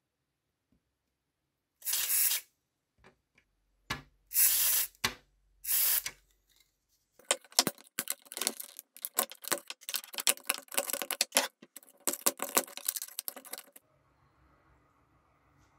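Three short hissing sprays onto the corroded plastic battery compartment of a toy sewing machine, then several seconds of rapid, scratchy scrubbing as the battery corrosion is cleaned off.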